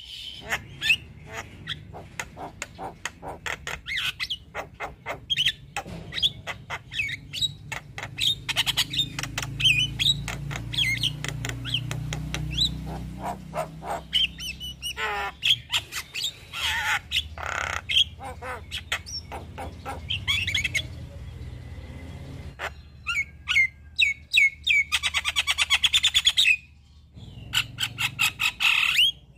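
Javan myna singing a fast, varied chattering song of sharp clicks, whistles, squawks and rapid trills, full of mimicked phrases, with a short break near the end.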